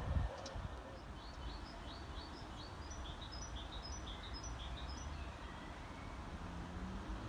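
A small songbird singing a quick run of short, high chirps, about three a second, for a few seconds, over a faint low background rumble.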